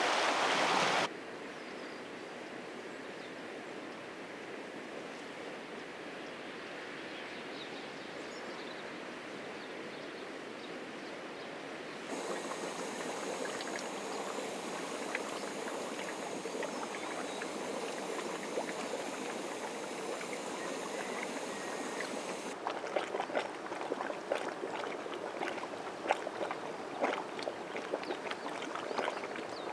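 Volcanic hot springs and fumaroles: a loud rush of venting steam for the first second, then a softer steady hiss. About twelve seconds in, hot spring water bubbling; from about two-thirds of the way through, a steaming fumarole hissing with irregular pops and crackles.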